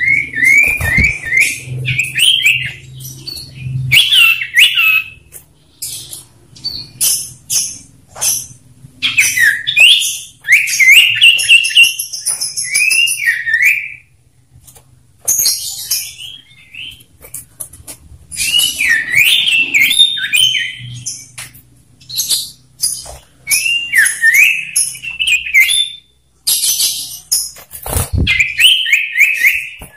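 Two male common ioras singing against each other in a lively, varied duel. Bursts of quick whistled notes rise and fall, mixed with fast high chattering trills and sharp clicks between phrases.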